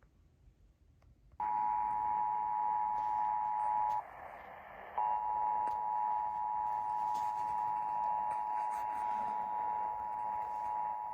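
Emergency Alert System two-tone attention signal, the paired steady tones of about 853 and 960 Hz sounding together over a background hiss. It starts about a second and a half in, drops out for about a second near four seconds in, then resumes, announcing the required monthly test that follows.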